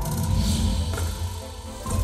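Show music with deep bass and a hissing high layer, new notes striking at the start and again near the end.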